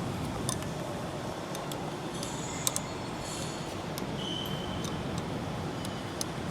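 Steady workshop background noise with scattered light clicks and taps, about a dozen spread through, and a brief high tone near the middle.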